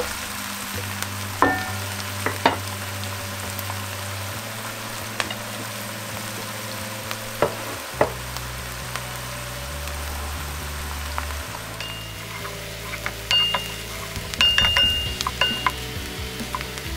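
Chopped onions and garlic sizzling in hot olive oil in a nonstick pan, being sautéed until translucent. A wooden spatula stirs them, with a few sharp knocks and clinks against the pan.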